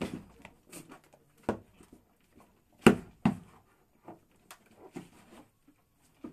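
Goats jostling over a shallow pan of grain on a slatted wooden floor: an irregular run of knocks and clatters as hooves and muzzles hit the pan and the boards, the loudest pair about three seconds in.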